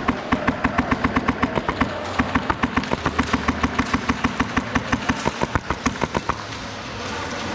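Airsoft electric rifle firing on full auto, a fast even rattle of about eight shots a second, with a short pause near two seconds and a stop a little after six seconds.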